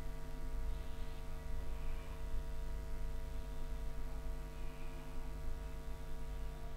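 Steady electrical hum made of several fixed tones over a low rumble, with no other clear event.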